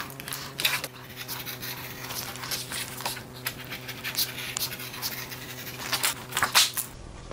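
Utility knife slicing leather flush along the edge of a laminate panel: irregular short scraping cuts, with the blade meeting a tough spot in the leather. A faint steady hum sits underneath.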